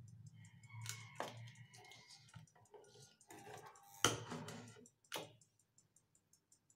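Handling knocks and rustles, the loudest about four seconds in, over an even high-pitched ticking of about five ticks a second and a low hum that stops about five seconds in.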